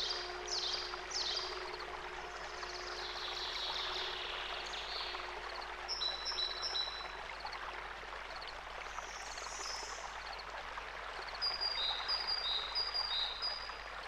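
Small birds chirping and calling over a steady rush of flowing water, like a nature-sound backing track. Quick falling chirps come in the first couple of seconds and short repeated notes later on. A low steady tone fades out about five seconds in.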